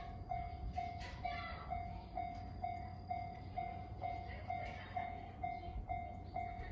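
Japanese level-crossing electronic warning bell ringing, one tone repeated steadily at about two strikes a second.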